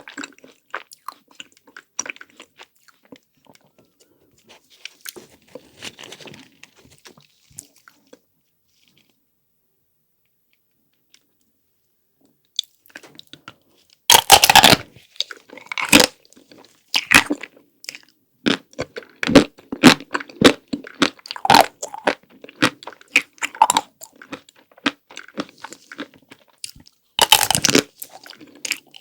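Close-miked eating of chocolate-coated ice cream. Faint chewing gives way to a few seconds of near silence. About halfway through comes a loud crunching bite through the hard chocolate shell, followed by steady crunchy chewing, with another big crunching bite near the end.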